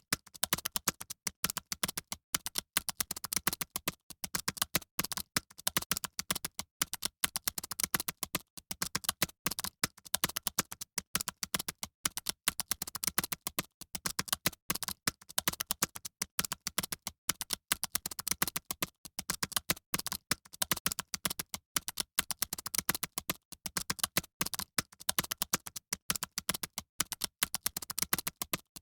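Fast typing on a computer keyboard: a rapid, continuous stream of key clicks with only brief pauses between strokes.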